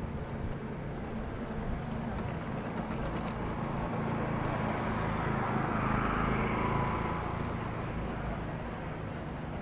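Steady rolling noise of a bicycle ride on a paved trail, tyre and wind noise on the microphone, swelling for a few seconds in the middle.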